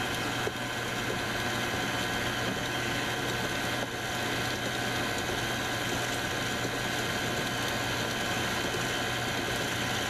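KitchenAid stand mixer running steadily, its flat beater mixing muffin batter in a stainless steel bowl: a constant motor hum with a steady whine.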